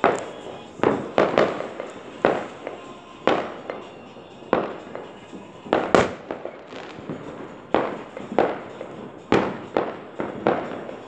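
Fireworks going off: an irregular string of bangs, roughly one or two a second, each with an echoing tail, the sharpest crack about six seconds in.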